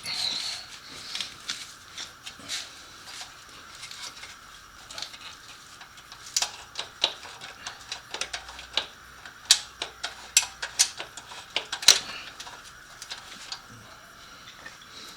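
Irregular light metallic clicks and taps, with a sharper knock about twelve seconds in, as the catalytic converter section of a motorcycle exhaust is worked loose by hand.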